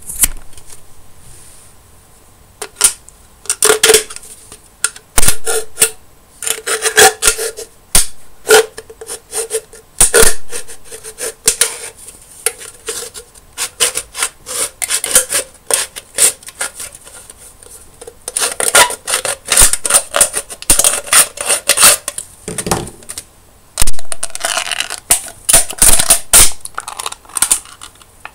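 Thin aluminium drink can being handled, bent and torn by hand: irregular clusters of sharp metallic crackles and clicks.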